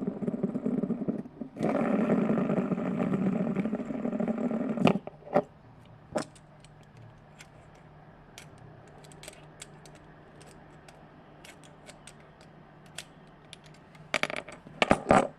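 A plastic fidget spinner being pried apart by hand to free its bearing: a few seconds of scraping and grinding, then sharp clicks, scattered faint ticks, and a cluster of loud clicks and scrapes near the end.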